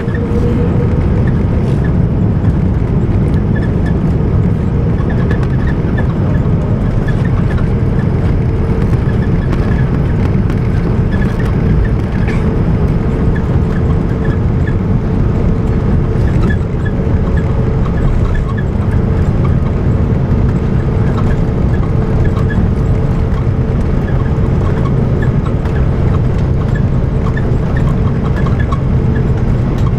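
Airbus A330 cabin noise on the ground after landing: the Rolls-Royce Trent 700 engines running at low thrust while taxiing, a loud steady low rumble with a constant whine.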